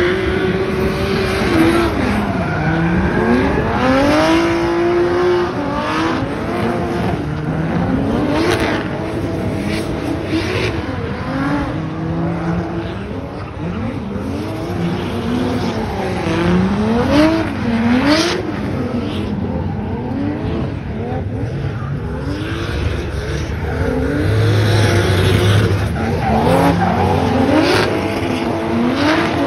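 Drift car engine revving hard and falling back again and again, every second or two, as the car slides, with tyres squealing and skidding under it.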